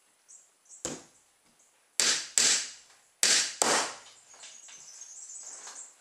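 Hammer driving nails into the finger-jointed wooden boards of a beehive honey super: a light tap, then four sharp blows in two quick pairs, followed by a couple of seconds of softer scraping.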